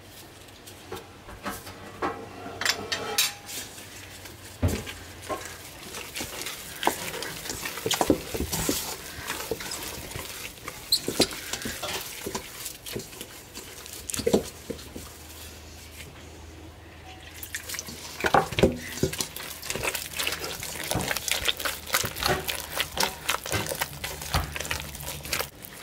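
Sticky jalebi batter being mixed in a stainless steel pot, first stirred with a spoon, then squeezed and slapped by a gloved hand: irregular wet squelches and smacks with occasional knocks against the pot, easing off briefly about two-thirds through.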